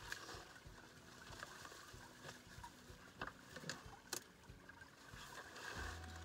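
Sticks and dry brush being handled and pushed in around a set beaver trap: scattered knocks and a few sharp cracks over soft rustling, with light water sounds. Background music starts near the end.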